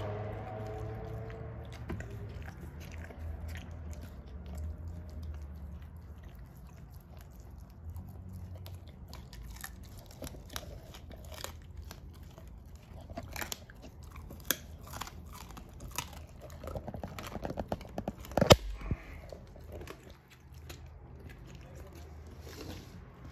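An American bulldog chewing and crunching raw food with irregular, wet bites. The loudest crunch comes about three quarters of the way through.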